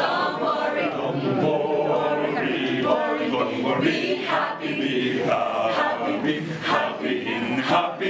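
A group of men and women singing together without instruments.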